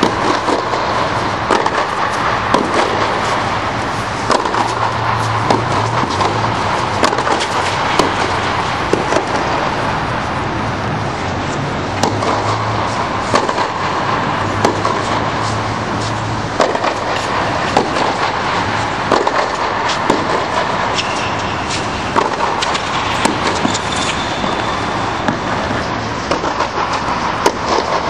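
Tennis rally: sharp racket-on-ball hits and bounces about every second or so, over a steady loud drone inside an air-supported tennis dome.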